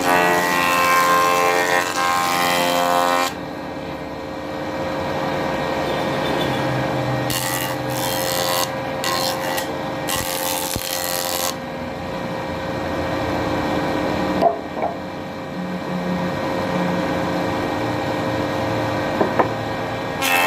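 Woodworking power machine running with a steady hum, cutting wood with a rasping sawing noise that grows harsher for a few seconds around the middle.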